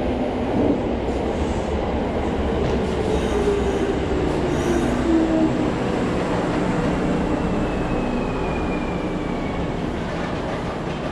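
Electric train running beside an underground station platform: a steady rumble of wheels and motors, with a whine that slowly falls in pitch through the middle.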